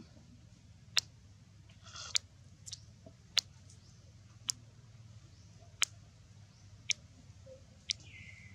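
A series of sharp, dry single clicks, about one a second at uneven spacing, over a faint low hum, with a brief rustle about two seconds in and a short high squeak near the end.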